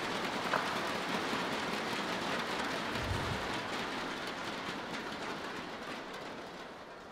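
Crowd noise in a badminton arena, a dense, steady din that fades gradually toward the end. A sharp click comes about half a second in, and a short low thump about three seconds in.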